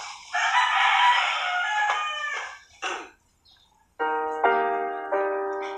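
A rooster crows once, a single long call of about two seconds. After a short pause, piano notes of background music begin about four seconds in.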